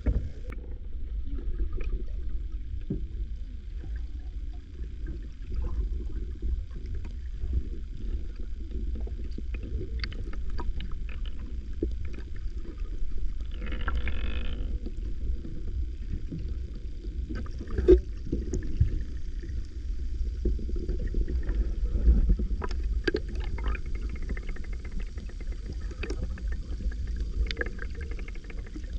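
Muffled water sloshing and gurgling around a kayak, a steady low rumble with scattered light knocks and clicks, one sharper knock about two-thirds of the way in.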